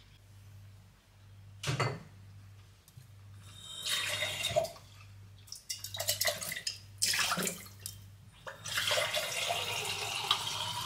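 Kitchen tap running water into a glass: a knock about two seconds in, then short runs of water about four and seven seconds in, and a steady flow from about nine seconds in.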